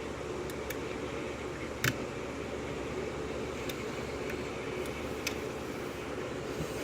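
Small, sharp clicks of a lock pick working the pins of a six-pin Schlage lock cylinder, scattered and irregular, with one louder click about two seconds in. A steady low hum runs underneath.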